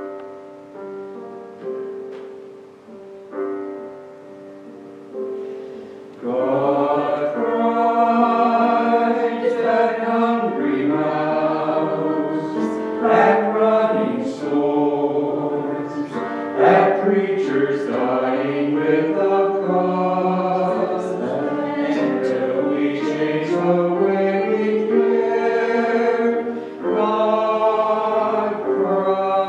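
Piano introduction of single notes, each struck and fading, then a small group of mixed voices comes in about six seconds in, singing a slow hymn to the piano accompaniment.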